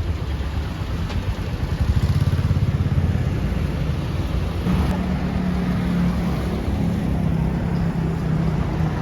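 Motor vehicle engine and road noise, a low rumble that pulses for a moment and settles into a steady low drone about five seconds in.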